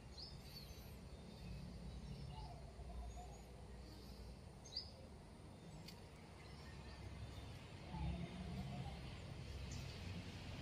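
Outdoor ambience: a steady low rumble with faint, short bird chirps now and then, and a single sharp click a little under five seconds in.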